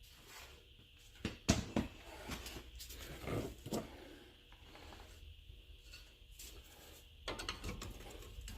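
Scattered knocks and clinks of tools and parts being handled while searching for a bolt during a front strut install. The loudest knock comes about a second and a half in, and a cluster of clicks comes near the end.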